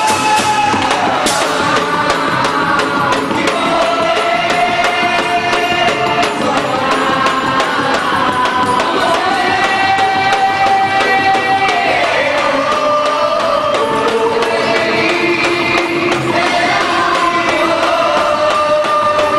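Festa junina music: voices singing long held notes that glide from one pitch to the next over a steady, dense accompaniment.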